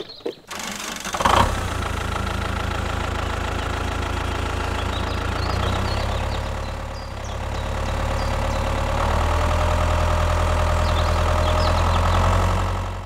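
Tractor engine starting up with a clunk about a second in, then running steadily. It eases down near the middle and picks up again for the last few seconds before cutting off.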